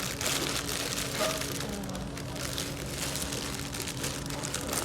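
Packaging crinkling and rustling in irregular small crackles as a toy is dug out and unwrapped.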